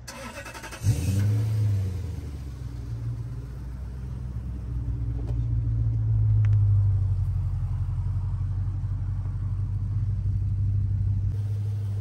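Toyota Celsior's 4.3-litre V8 starting: a brief crank, then it catches about a second in with a short flare of revs and settles into a steady idle through a used, no-brand rear straight muffler.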